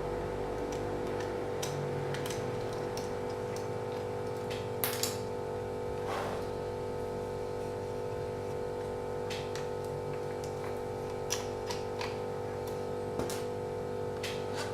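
Scattered small clicks and taps, as of a screwdriver and plastic laptop parts being handled during disassembly, over a steady electrical hum.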